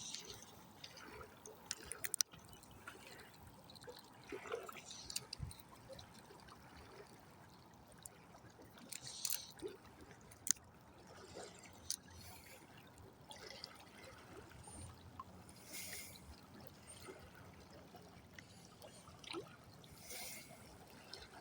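Faint trickling of river water, with scattered light clicks and a few short, brief rushes of noise.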